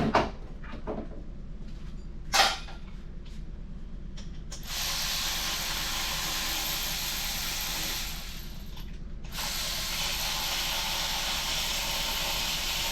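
A tool running in two long stretches of steady hissing whir, each about three and a half seconds, with a break of about a second between, after a couple of sharp clicks.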